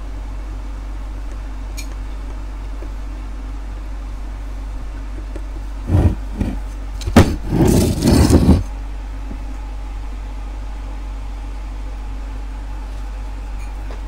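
Washing-machine universal motor running steadily on the bench with a low hum. About six seconds in come loud knocks and rubbing for two to three seconds as a screwdriver held against the motor is moved about.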